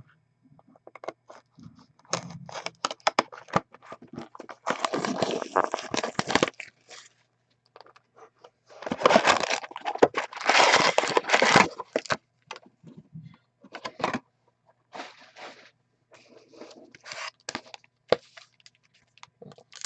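Plastic shrink wrap and cardboard tearing, crinkling and scraping as sealed trading card boxes are opened, in several noisy bursts with small clicks between them.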